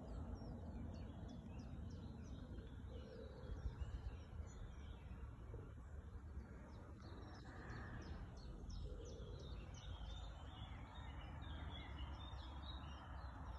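Small woodland birds chirping and singing, many short high calls throughout, over a steady low rumble.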